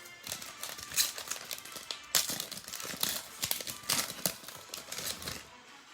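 Plastic trading-card packaging crinkling as it is handled and opened, in irregular crackling bursts.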